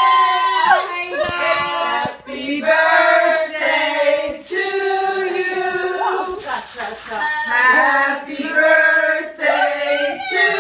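A small group singing a birthday song together, with long held notes.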